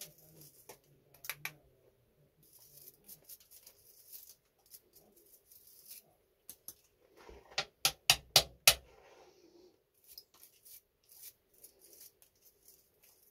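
Small hard parts being handled on a workbench: scattered light clicks and scrapes, with a quick run of sharp, louder clicks about eight seconds in.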